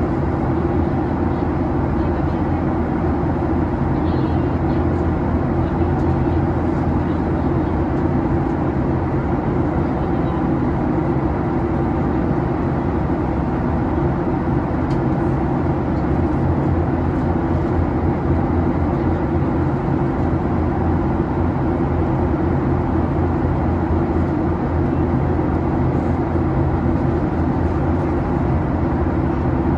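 Steady low drone of cabin noise inside a Boeing 737-800 airliner, from its engines and the airflow past the fuselage, heard from a window seat near the front.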